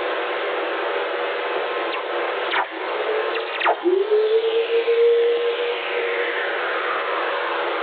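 Very-low-frequency radio recording of Earth proton whistlers, played as sound. Over a steady hiss, two sharp crackles from lightning impulses come a little before halfway. The second is followed by a low tone that rises quickly and then levels off, holding for about two seconds. A fainter whistle glides down from high to lower pitch over the second half.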